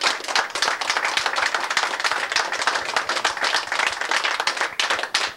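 Applause: a group of people clapping their hands, dense and irregular.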